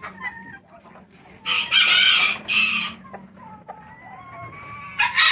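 Bantam roosters crowing: one loud crow about a second and a half in, then quieter chicken calls, and another crow starting near the end.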